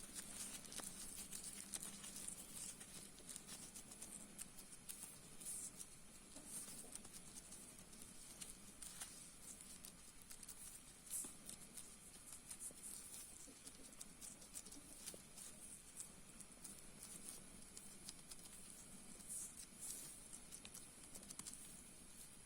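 Near silence: faint scattered clicks and taps over a steady low hum and a thin high whine.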